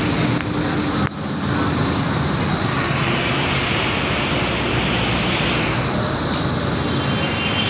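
Steady, loud noise from a faulted power line arcing on an electric utility pole.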